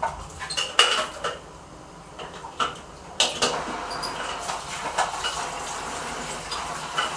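A few sharp clicks and knocks of hard things being handled, then from about three seconds in a steady rushing noise that keeps on: an external aquarium canister filter switched on and starting to push water through its hoses.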